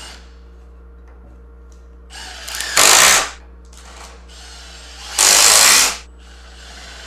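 Power drill driving 3-inch deck screws into the kayak rack arms, in two runs of about a second each: the first starts a little after two seconds in and builds up, and the second comes about five seconds in.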